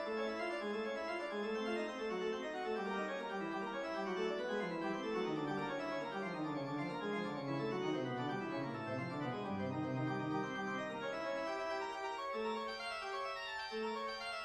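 Organ music, a quick run of held notes; partway through the line steps down to low notes and then climbs back up.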